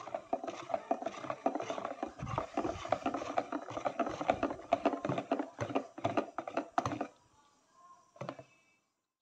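Wire whisk beating a runny honeycomb-cake batter by hand in a plastic bowl: quick rattling, sloshing strokes that stop about seven seconds in, then a single knock near the end.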